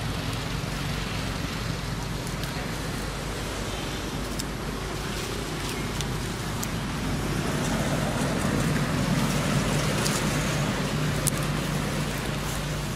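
Steady outdoor background rumble with a low hum, like distant road traffic, growing a little louder in the second half, with a few faint clicks.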